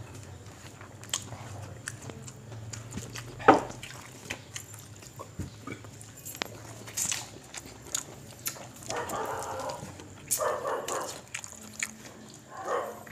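People eating by hand off banana leaves: chewing and mouth sounds close to the microphone, with rice and fish handled on the leaves. A sharp knock about three and a half seconds in is the loudest sound.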